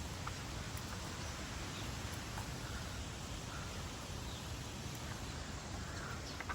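Faint, scattered bird chirps over a steady background hiss.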